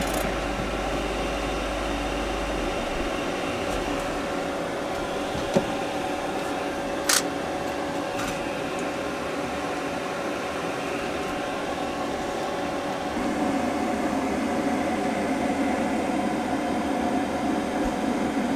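Steady mechanical hum with hiss, fuller and lower from about two-thirds of the way in, with two brief sharp clicks a little before the middle.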